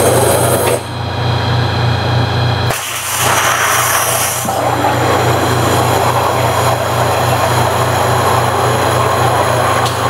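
CNC waterjet cutter cutting a plate: a loud, steady rushing hiss of the high-pressure jet over a steady low hum. The hiss thins out and dips about a second in, then comes back fully near three seconds.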